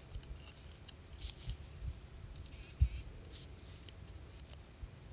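Faint outdoor quiet: scattered small, high-pitched ticks and scratches, over an uneven low rumble of wind on the microphone, with one sharp low bump nearly three seconds in.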